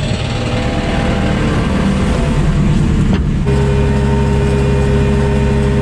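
Compact track loader's engine running close by; after a short knock about three seconds in, the throttle is raised and the engine settles at a higher, steady speed.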